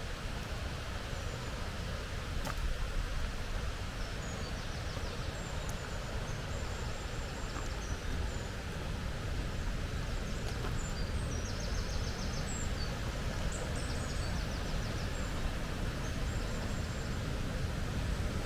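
Small songbirds calling in high, thin chirps and short trills, scattered through the stretch, over a steady low rushing noise.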